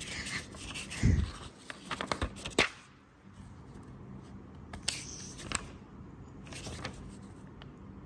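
Pages of a paper notebook being turned and handled: rustling and scraping with a soft thump about a second in and a run of crisp clicks, then a few lighter rustles.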